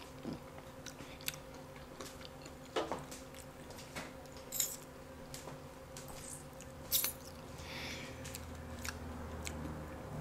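Close-up chewing and biting into deep-fried catfish, with scattered sharp clicks and scrapes of a fork against the plate, the loudest three about 3, 4.5 and 7 seconds in.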